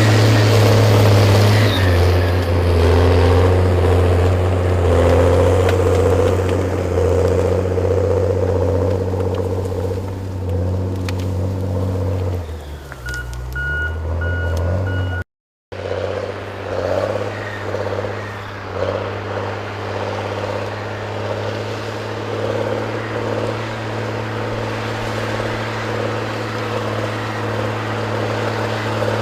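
Heavy forestry machine's engine running steadily. Its note dips and shifts briefly about halfway through, with a short high-pitched beeping at that point.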